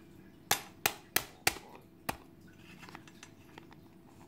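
Hard plastic clicking and snapping as a small orange Spark-Lite fire starter case is worked open in the hands: five sharp clicks in quick succession over about a second and a half, then faint handling sounds.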